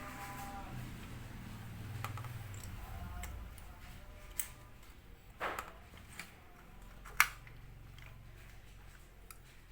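A low steady hum with a few sharp clicks and taps over it, the loudest click about seven seconds in.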